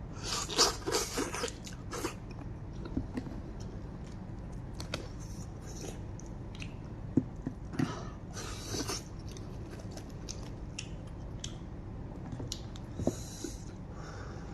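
Close-up eating of a lamb's head: wet chewing, biting and sucking at the meat, with short noisy bursts of eating sound near the start and again around eight seconds in, and a few sharp clicks.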